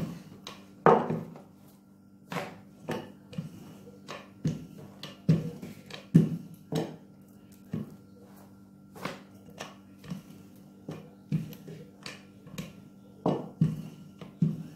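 Wooden rolling pin rolling out dough on a table, with irregular knocks and taps as the pin strikes the tabletop and is set down. A faint steady hum runs underneath.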